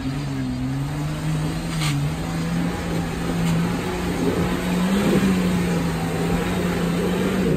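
Jeep's electric winch running under load as it hauls the Jeep up a steep incline, a steady motor drone that creeps slightly up in pitch and stops just before the end.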